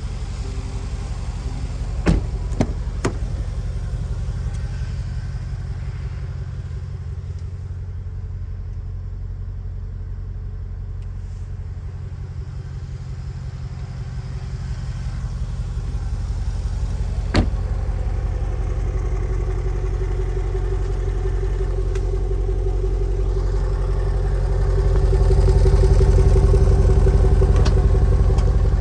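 Jaguar SVR's supercharged 5.0-litre V8 idling steadily, getting louder in the last few seconds, close to its quad exhaust tips. A few sharp clicks sound about two to three seconds in, and one more about halfway through.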